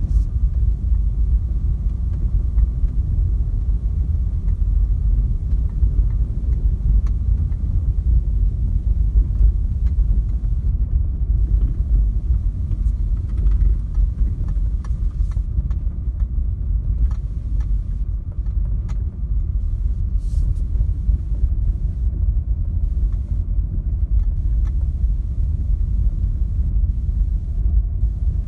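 A Renault Clio IV dCi 90 driving, heard from inside the cabin as a steady low rumble of tyre and road noise with the engine underneath, broken by a few faint clicks.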